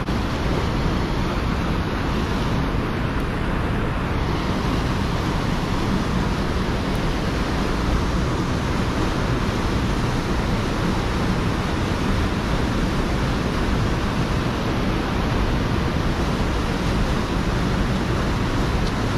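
Whitewater of a river cascading through a rocky gorge, a steady unbroken rush of water.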